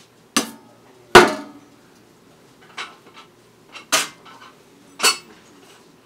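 Metal clanks from a metal scoop being handled against the steel catch bin of a Korean rice popping machine. Five sharp strikes at uneven spacing, the second, about a second in, the loudest.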